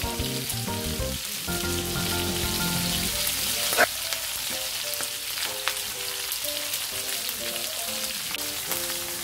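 Shrimp heads shallow-frying in cooking oil in a pan, a steady crackling sizzle. A single sharp knock sounds about four seconds in.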